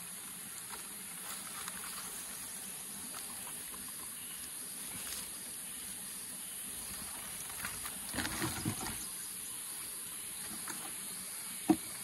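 Rainforest ambience: a steady high insect drone, with scattered small clicks, a short cluster of dull thuds about two-thirds of the way in and one sharp knock near the end.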